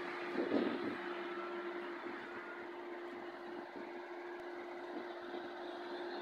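Diesel engines running steadily: a constant hum with one held tone from idling heavy farm machinery close by and a Mercedes-Benz lorry approaching slowly. There is a brief louder burst about half a second in.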